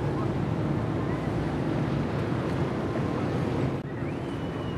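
Wind buffeting the microphone over a steady wash of water and a low rumble. About four seconds in, the noise breaks off briefly and a thin high tone glides up and holds.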